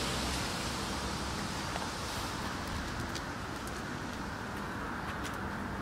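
Steady outdoor background hiss, with a few faint ticks in the second half from a person and a dog walking on brick paving.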